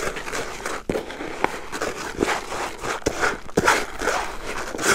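Hands stirring and working coarse groundbait, freshly wetted with water, with its large grains, corn and wheat scraping together in a run of irregular short strokes.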